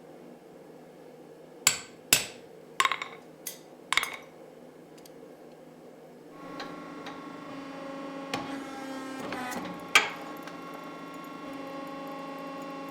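About six sharp, ringing metal strikes and clanks in the first few seconds. From about halfway a steady machine hum starts, with two more knocks over it.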